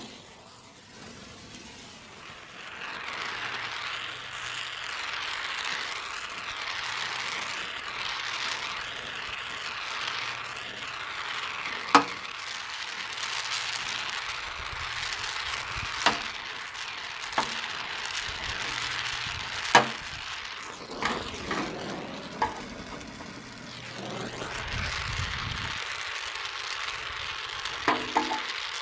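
Gas torch flame hissing steadily as it heats the soldered seam of a tractor radiator's tank, with a few sharp clicks now and then.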